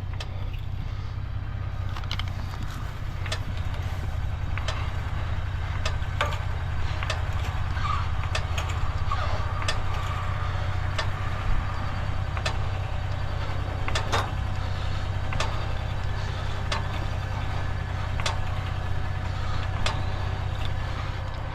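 Steady low rumble of vehicle engines and road traffic, with scattered sharp clicks and knocks about once a second.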